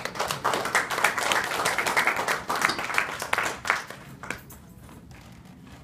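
Small audience applauding, dense clapping that thins out and stops after about four seconds.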